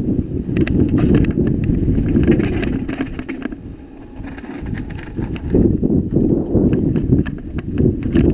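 Mountain bike rattling fast downhill over cobblestones: tyre rumble with a rapid, irregular clatter of knocks from the bike and wind on the microphone. The rattle eases for a second or two in the middle, on smoother concrete, then picks up again.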